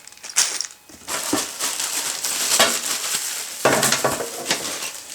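Plastic packaging crinkling and rustling as bagged hardware packets are handled, with a few sharp clicks among the crackle and a short lull about a second in.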